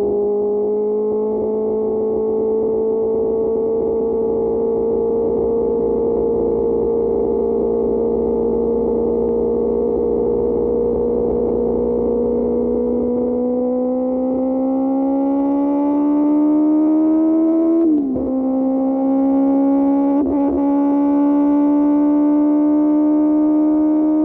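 QJ Motor SRK600 inline-four engine through an SC-Project exhaust, under way with a steady drone. About halfway through the pitch climbs as the bike accelerates, then drops suddenly on an upshift, with another brief dip a couple of seconds later before it settles and rises again.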